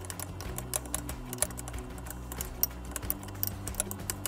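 A metal fork clinking and tapping irregularly against a bowl as chicken drumsticks are turned in beaten egg for breading: light, sharp clicks several times a second.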